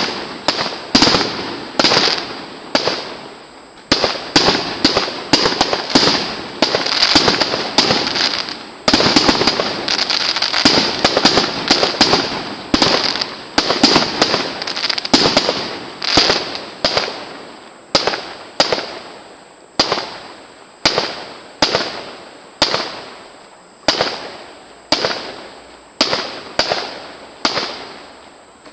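Aerial fireworks bursting: a quick run of sharp bangs, each fading away, thickening into dense crackling and banging in the middle, then single bangs about once a second toward the end.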